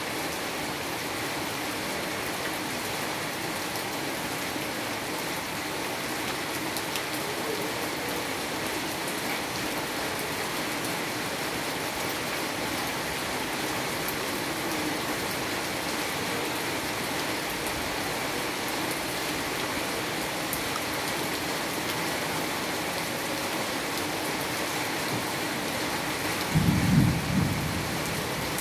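Steady rain falling on a cobbled street and rooftops, with a brief low rumble of thunder near the end.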